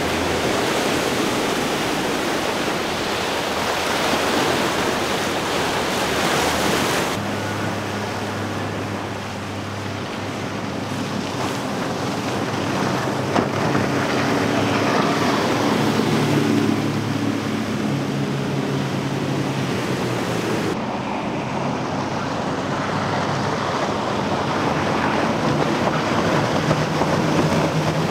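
Outboard-powered boats running fast through rough inlet water. At first the rushing wash of hull spray and breaking waves dominates. From about seven seconds in, the steady drone of outboard engines runs over the water noise, changing pitch as boats pass.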